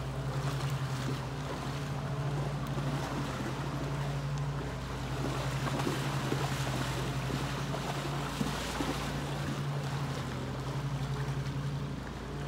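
Steady rush of a shallow river, with wind on the microphone and a steady low hum underneath. Light splashing from horses wading, with a couple of sharper splashes around the middle.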